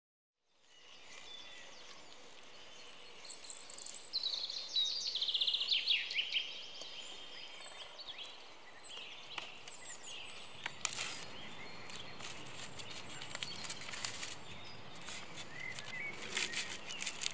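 Woodland birdsong: several birds chirping and trilling over steady outdoor background noise, fading in at the start. From about ten seconds in, scattered light clicks and ticks join it.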